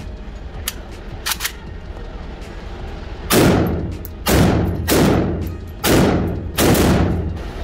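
Five gunshots from a compact firearm on an indoor range, fired at roughly one a second in the second half, each with a long reverberant tail. A few much fainter sharp cracks come in the first second and a half.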